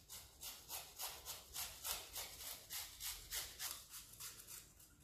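Pickled gherkin grated on a flat metal hand grater into a glass bowl: a rapid run of scraping strokes, about three a second, stopping near the end.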